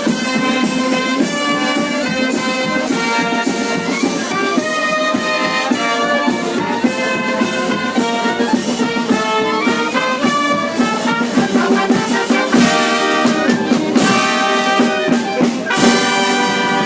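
Brass band playing music.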